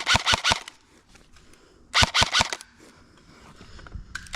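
Airsoft gun firing in quick bursts: about five rapid shots, a pause, about five more roughly two seconds in, and a longer string starting near the end.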